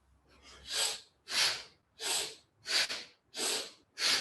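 A person breathing forcefully and rhythmically through the nose, in time with yoga spinal flex: six quick breaths, alternating inhale and exhale, about one every two-thirds of a second.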